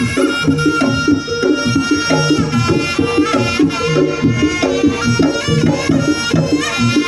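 Live jaranan gamelan music: kendang drums beat under a repeating pattern of struck gong-chime notes, while a high, reedy wind melody holds long notes and bends between them, typical of the slompret used in jaranan.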